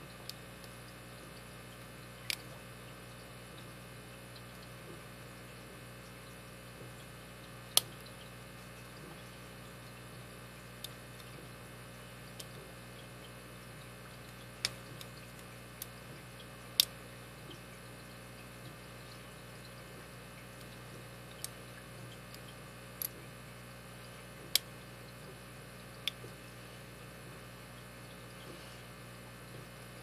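Scattered sharp metallic clicks, about a dozen at irregular intervals, from a pick and tension wrench working the pin tumblers of a brass Master Lock 4160 padlock with security spool pins. They sound over a steady low hum.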